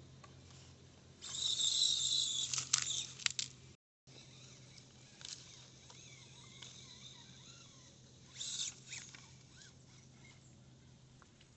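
Rustling and crackling in dry leaf litter and twigs for about two seconds, with a few sharp clicks. A shorter burst of rustling follows a few seconds later.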